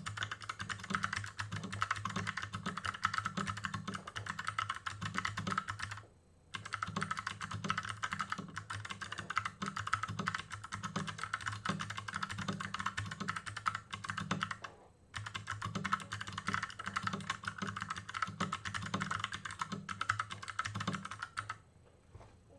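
Fast, continuous touch-typing on a custom 60% mechanical keyboard with Kailh Box Pink clicky switches, a steel plate and an aluminium case: a dense patter of key clicks. It breaks off briefly about six seconds in and again around fifteen seconds, then stops shortly before the end.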